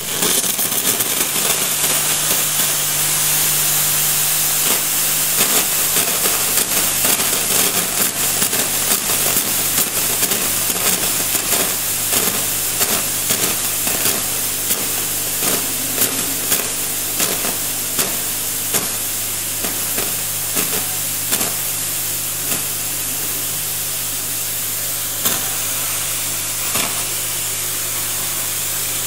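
Gaggia Classic Pro espresso machine steam wand blowing steam into open air: a steady hiss with irregular spitting crackles. Under it runs a steady low hum from the vibratory pump, switched on while steaming for steam boost.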